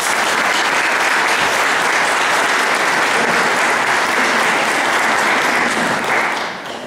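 Congregation applauding: steady, dense clapping that fades out near the end.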